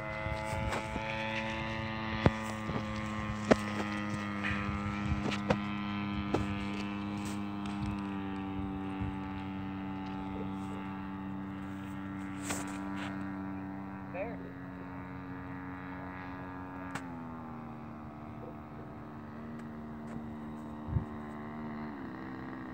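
Giant-scale radio-controlled model airplane flying overhead, its engine and propeller droning steadily. The pitch sags, drops in a step about three quarters of the way through, then rises slightly near the end. A few sharp clicks come in the first third.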